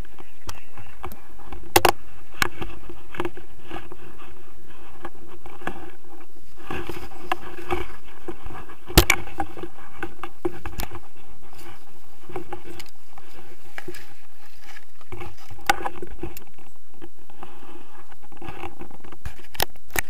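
Airflow and handling noise on a pole-mounted action camera during a tandem paraglider flight: a steady rush with many irregular sharp clicks and knocks. The loudest knock comes about nine seconds in.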